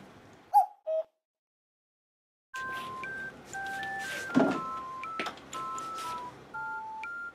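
Simple electronic background melody of plain beeping tones, often two notes at once, changing every few tenths of a second, with scattered knocks and thumps from a cat leaping about a carpeted sisal cat tower. Before it, two short high sounds, then a second and a half of silence.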